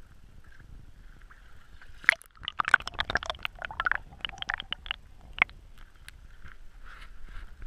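Creek water sloshing and gurgling around a camera at and just below the surface as a hand net is swept through, with a dense run of sharp splashes and clicks from about two seconds in to about six seconds, over a low rumble.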